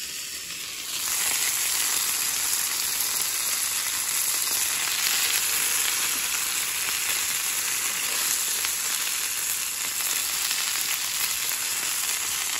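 Breaded chicken pieces sizzling steadily in oil in a nonstick frying pan, louder from about a second in.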